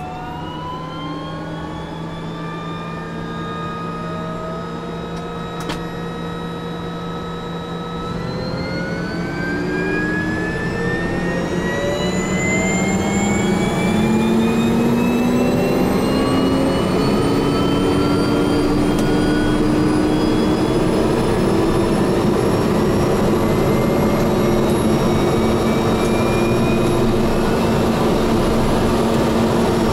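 Cessna Grand Caravan's PT6A turboprop engine starting. The starter whine holds a steady pitch for the first several seconds. About eight seconds in, the engine lights off and the whine climbs in pitch and grows louder as it accelerates, then settles into a steady idle for the last several seconds: a normal start.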